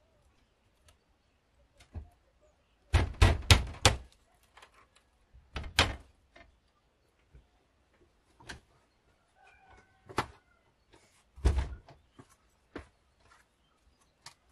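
Knocks and thuds of work on wooden boards: a quick run of four or five blows about three seconds in, then single or paired blows every second or two. Faint bird calls about ten seconds in.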